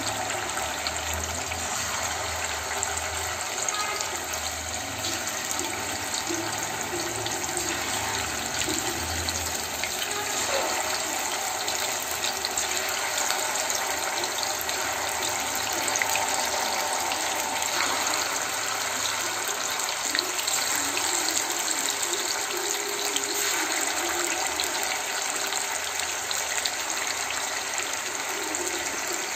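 Marinated, rice-flour-coated chicken pieces deep-frying in hot oil in a kadai: a steady sizzle.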